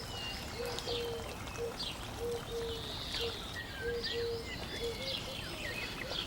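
Birds calling over a steady background hiss: a repeated series of short, low notes and scattered higher chirps and whistles.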